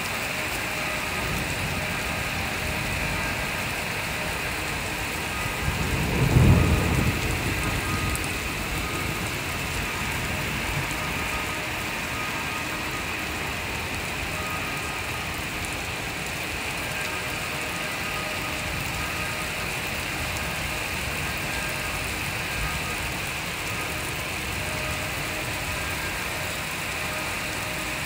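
Heavy rain falling steadily, with a rumble of thunder about six seconds in that is loudest for a moment and dies away over about two seconds.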